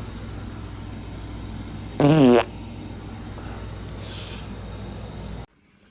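A man farting: one loud fart about two seconds in, lasting about half a second with a wobbling pitch, then a fainter short hiss about two seconds later, over a steady background hum that cuts off near the end.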